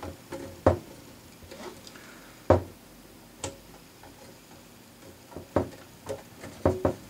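Hard plastic clicks and taps as the chrome windscreen frame of a 1/8 scale Dodge Charger R/T model is pressed into the plastic roof and snaps into place: about six separate clicks, the loudest about two and a half seconds in.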